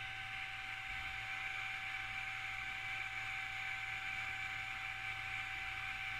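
Steady background hiss with a constant high whine and a low hum, unchanging throughout, with no distinct events.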